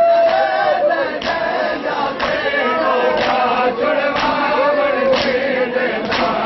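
A crowd of men chanting a mourning noha together while beating their chests in matam, with a sharp slap of hands on chests about once a second in time with the chant.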